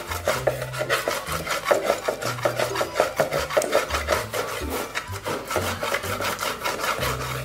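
Pestle grinding chilies, salt and shrimp paste against a shallow cobek mortar into sambal terasi: fast, even, gritty rubbing strokes, several a second.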